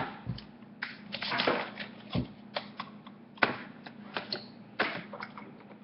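Irregular light clicks and knocks of a blender being handled and hooked up; the motor is not running.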